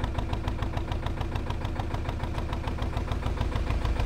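Narrowboat diesel engine running steadily while cruising, with an even, fast beat of knocks over a low rumble.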